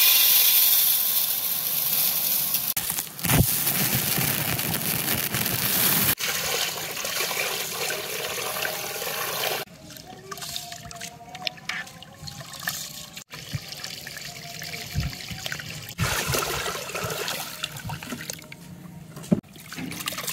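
Water running and pouring, loud and steady for the first half with brief breaks, then in quieter, intermittent spells.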